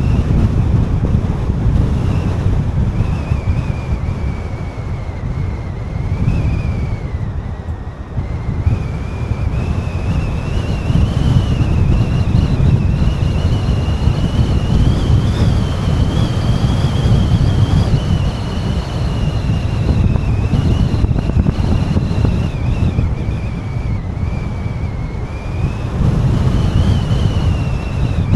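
A moving car's road and wind noise: a steady low rumble, with a thin high whine above it that slowly falls, rises and falls again.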